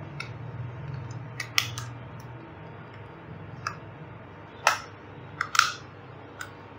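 Scattered sharp plastic clicks and light rustling from handling a coil of Cat 6 network cable and a handheld cable tester, with the two loudest clicks near the end, over a faint low hum.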